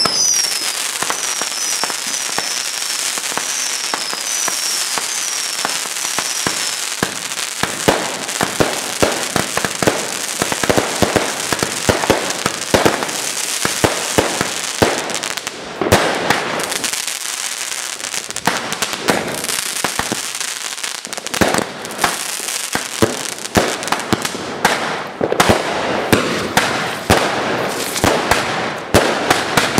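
Consumer fireworks going off: rockets bursting amid dense, rapid crackling and firecracker bangs. In the first several seconds there is a quick run of short, falling whistles.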